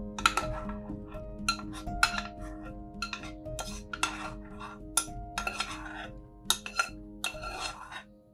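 Spoon scraping and clinking against a saucepan as chunky tomato sauce is spooned out of it, in a series of short irregular strokes.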